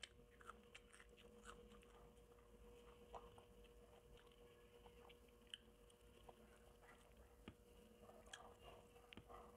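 Faint close-up chewing of crispy fried garlic chicken: scattered soft clicks and smacks of the mouth working, over a faint steady hum.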